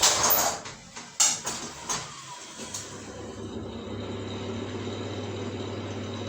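A few knocks and clatters, then a bathroom ventilation fan starting up about two and a half seconds in and settling into a steady, rough hum: the fan whose bearing has gone bad.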